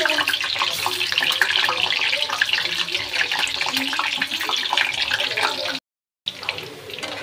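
Boiled potato halves frying in hot oil in a kadhai: steady sizzling and bubbling, thick with small crackling pops. The sound cuts out for a moment about six seconds in, then the sizzling comes back quieter.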